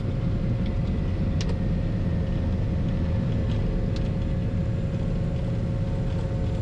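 Steady drone of a Cessna 340A's two Continental TSIO-520 piston engines and propellers at low power, heard from inside the cabin, with a few faint clicks.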